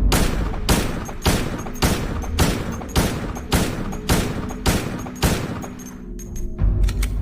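Beretta 92FS Centurion pistol firing about ten evenly spaced shots, a little under two a second, followed by a few lighter clicks and a low thump near the end. A steady low drone sounds underneath.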